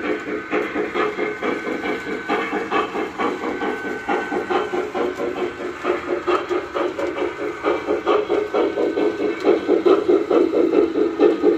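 Lionel Challenger O-gauge model steam locomotive running along the track, its sound system giving a steady, quick rhythm of chuffs that grows louder in the last few seconds as the engine draws near.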